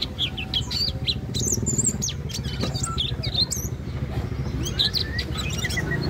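Caged cungkok leafbird singing a rapid, varied stream of chirps, whistles and slurred notes, sung vigorously. A steady low hum runs underneath.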